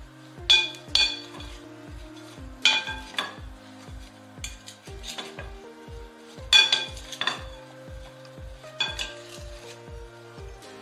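Two wooden spoons tossing cut vegetables in a glass mixing bowl, the spoons knocking the glass in ringing clinks, often in pairs, every second or two. Background music with a steady beat plays underneath.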